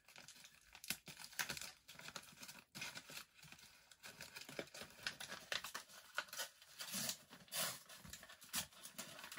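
A parcel's wrapping being torn open and crinkled by hand, in irregular rustling bursts.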